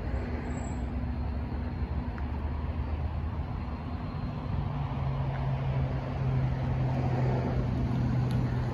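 Steady low engine rumble with a constant hum, a deeper hum building up and getting louder from about halfway in.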